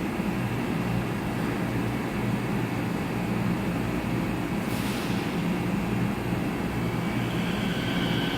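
Light-rail train running at the platform: a steady rumble and hum, with a short hiss about five seconds in and higher steady tones coming in near the end.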